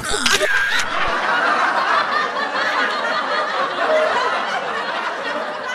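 Laughter from many voices at once, a comedy laugh track, steady throughout and opening with a brief sharp noise.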